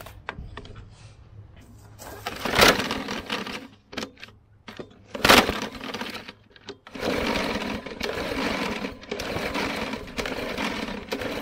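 Small walk-behind lawn mower engine being pull-started with its clogged air filter taken out: two hard pulls on the recoil starter, then the engine catches and runs unevenly.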